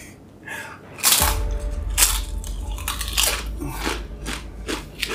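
A man biting into and chewing the Paqui One Chip Challenge tortilla chip. The crisp crunches start about a second in and come quickly, roughly three a second.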